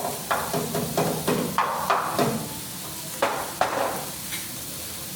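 Metal cooking utensils knocking and clacking against a teppanyaki griddle, about ten quick sharp strikes with a short ring, bunched in the first four seconds, then quieter.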